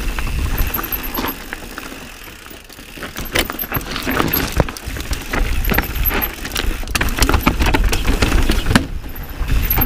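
Mountain bike riding over rough trail: chain and frame rattling with many quick clicks and knocks over a low rumble of tyres and wind. It eases off around two to three seconds in, then the rattling picks up and gets busier.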